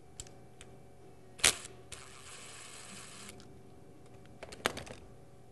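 Bolt and DeWalt cordless impact driver clicking against the cast-iron end plate of a rotary vane vacuum pump: a few sharp metal clicks, the loudest about a second and a half in, then a short whir of the driver for just over a second, then another quick cluster of clicks near the end.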